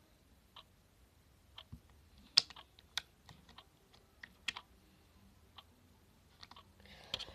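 Scattered light clicks and taps at an irregular pace, one louder click about two and a half seconds in.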